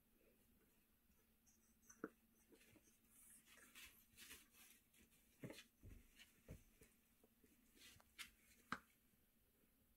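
Faint rustling and scratching as an English Bulldog puppy shuffles on a paper pee pad, with a few scattered soft knocks and sharp clicks.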